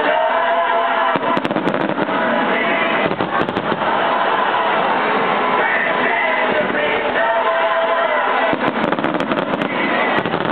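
Music playing together with fireworks bursting and crackling. Clusters of sharp cracks come about a second and a half in, again around three and a half seconds, and in a dense run near the end.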